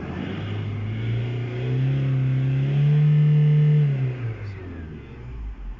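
Toyota Fortuner's engine running, revved up over a couple of seconds and held, then dropping back to idle a little past the middle, as the engine is checked after a shifter interlock repair.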